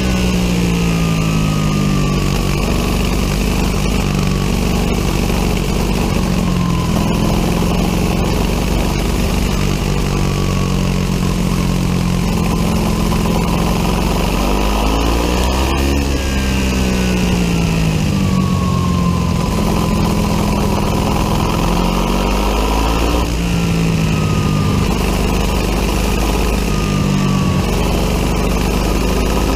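Biland SA250 four-stroke kart engine at racing speed, heard onboard: the revs climb along the straights and fall away under braking into the corners, with two deep drops around the middle and about three-quarters of the way through.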